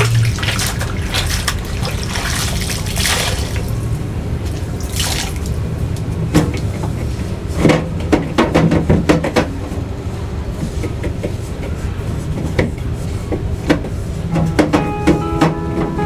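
Water and liquid sounds of a fridge being washed out, with a run of sharp clicks and knocks in the middle. Guitar music comes in near the end.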